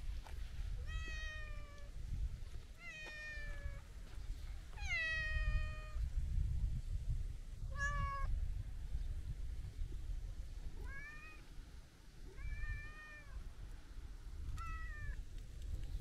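A long-haired brown tabby-and-white cat meowing repeatedly, seven meows in all. The first three are long and fall in pitch, a short one comes about eight seconds in, and the last three are shorter and rise then fall. A steady low rumble runs underneath.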